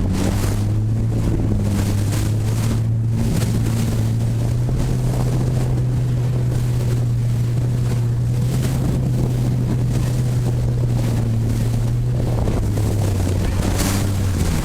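A boat's engine running at a steady drone, its pitch rising slightly about four seconds in and easing back down near the end, with wind buffeting the microphone.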